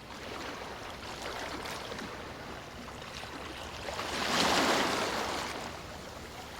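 Running water: a steady rushing hiss that swells louder about four seconds in, then eases back.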